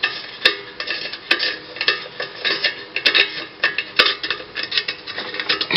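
Irregular metal clinking and rattling, with a few sharper knocks, as the sheet-metal exhaust cover on a lawn mower engine is fitted and screwed on with hand tools.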